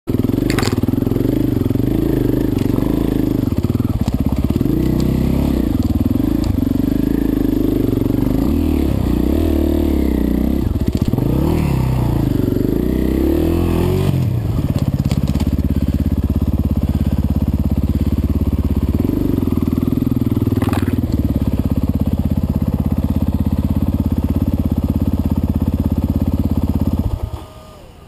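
Off-road motorcycle engine being ridden over rough ground, its pitch rising and falling with the throttle for the first half, then running at a steady speed. It stops abruptly about a second before the end.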